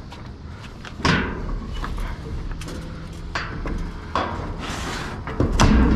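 Knocks, clunks and rustling of trash being shifted around in a dumpster, with the loudest clunk about a second in and another near the end.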